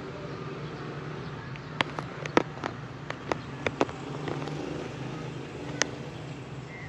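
Outdoor background of steady low hum and noise, typical of street traffic, with a quick run of sharp clicks a couple of seconds in and one more click near the end.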